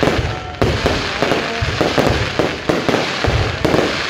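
Aerial fireworks display: shells bursting in quick succession, a dense, unbroken run of bangs and crackle.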